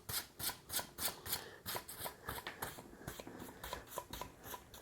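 Hand sanding of wood with coarse 120-grit sandpaper: quick, even back-and-forth scratching strokes, about three a second.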